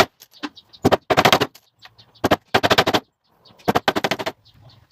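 Short bursts of rapid rattling impacts from a power fastening tool, several in a row, fixing thin pallet-wood strips onto a cabinet door.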